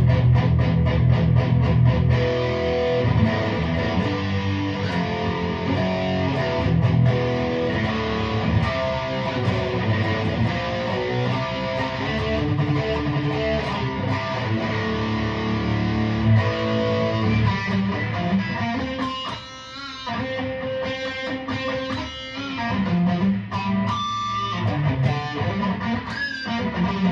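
Aria Pro II RS Wildcat electric guitar played on its bridge pickup through a heavily distorted tone: strummed chords and riffs, with a short break about two-thirds of the way through.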